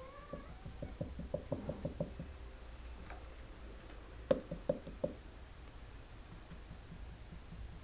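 Light, hollow knocks and taps on a sisal-wrapped cat tree post as Persian kittens clamber on it: a quick run of about ten near the start, then four or five louder ones around the middle.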